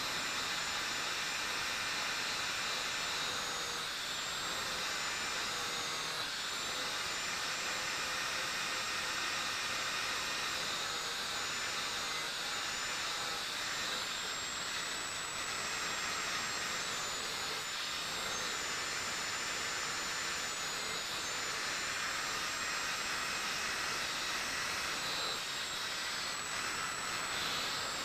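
Electric angle grinder running steadily with its disc grinding along the steel blade of a kukri: a continuous hissing rasp under a high motor whine that wavers a little in pitch.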